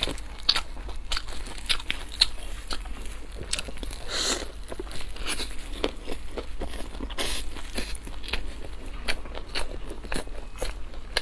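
Close-miked eating: biting into and chewing a crisp golden-fried bun, with crunchy crackles and wet mouth clicks. A longer crunching stretch comes about four seconds in.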